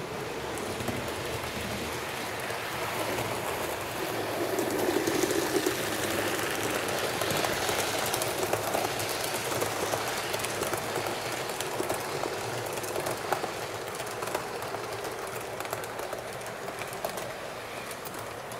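HO-scale model train, a Fleischmann BR 39 steam locomotive with passenger coaches, running on the track with a steady rolling rumble and small clicks of wheels over rail joints. It gets louder for several seconds in the middle as the train passes closest, then fades a little.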